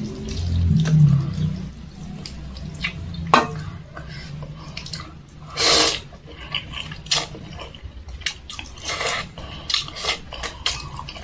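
Chicken noodles being slurped from chopsticks, with one long loud slurp about six seconds in. Around it come wet eating sounds and short clicks of chopsticks against a stainless steel bowl.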